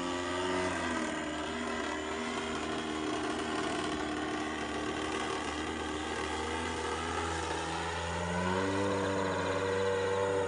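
Radio-controlled SLICK aerobatic plane's DLE-35RA single-cylinder two-stroke gasoline engine running in flight. About a second in its clear note blurs and drops back; from about eight seconds in it comes back clear and louder.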